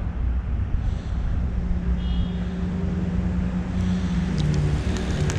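Low, steady rumble and hum of road traffic carrying through a concrete culvert, the hum dropping in pitch about four seconds in. Near the end, a run of light clicks from the spinning reel being handled.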